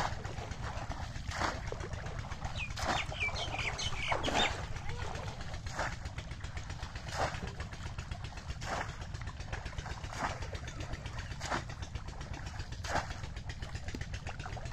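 A cone-shaped bamboo fish trap plunged again and again into shallow muddy water, a splash about every second and a half as it slaps down onto the surface.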